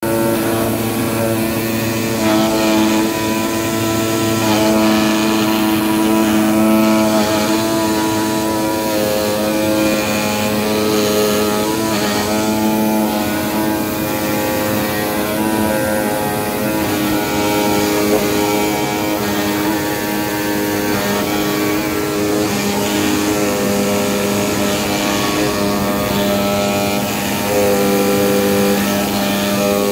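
CNC pneumatic knife cutting machine running as it cuts a foam yoga mat: a steady machine hum with several tones above it that step up and down in pitch every few seconds as the cutting head moves.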